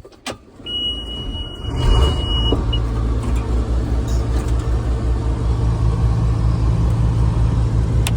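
Case IH 2388 combine's diesel engine starting up. A steady high beep sounds for about two seconds. The engine catches about two seconds in and settles into a steady run with an even low throb.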